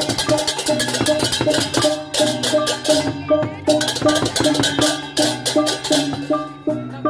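Balinese gamelan played live for a barong procession: fast, continuous clashing of ceng-ceng hand cymbals over a repeating figure of pitched gong-chime notes. The cymbals break off briefly about three seconds in and again near the end, while the pitched notes carry on.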